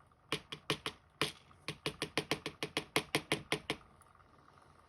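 Robur safety deposit box lock being tapped repeatedly to knock its key pins out of the plug: a quick run of about twenty sharp taps, about six a second, lasting some three seconds.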